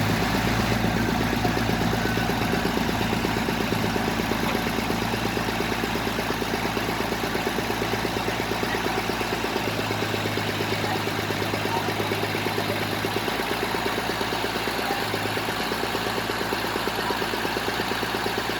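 Engine of a bored-pile drilling rig running steadily with a fast, even pulse.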